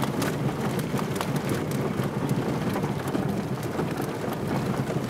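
Peugeot 306 crawling over a rough gravel and grass track: a steady low rumble of tyres and engine, with scattered crackles and clicks of loose stones under the tyres.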